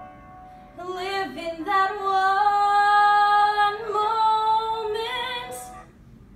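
A young woman singing the closing phrase of a musical-theatre song, a few short notes rising into one long held note with slight vibrato that stops near the end.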